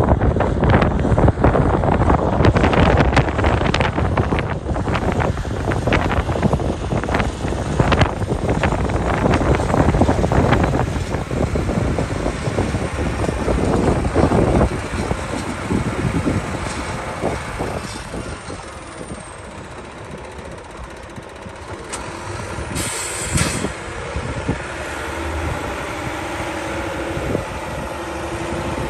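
Volvo A30F articulated dump truck's six-cylinder diesel running as it drives over dirt, with loud, rough, gusty noise over it for about the first half. A short hiss of air about two-thirds of the way through, like an air brake release.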